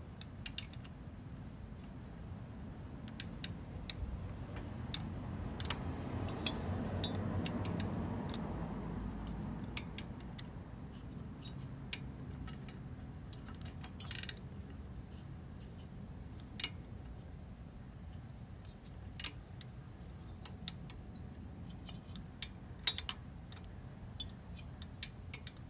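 Wrench and socket on the motorcycle's shifter linkage bolts: scattered light metallic clicks and taps as the bolts are snugged down, with a sharp clink of metal near the end.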